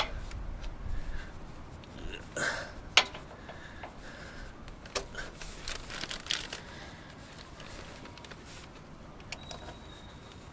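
Hands working at an oil filter tucked behind the exhaust manifold, trying to screw it on by hand: scattered light knocks and clicks with some rustling, the sharpest click about three seconds in.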